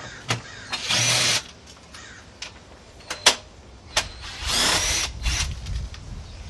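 Cordless impact wrench running in two short bursts, loosening the factory strut tower bar's 14 mm bolts, with sharp metallic clicks of tools and parts in between.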